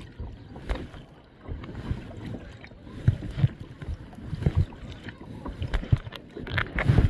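Kayak paddling: paddle strokes dipping and splashing in the water, with irregular low thumps, dropping off briefly about a second in.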